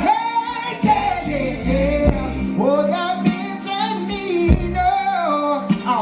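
Amplified concert music: a singer holding long, wavering notes over a bass line, with a drum hit about once a second.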